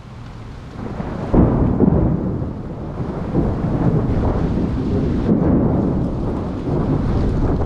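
Heavy rainstorm on a car heard from inside: rain drumming on the roof and glass over a deep rumble. It swells up over the first second or so and then holds loud and steady.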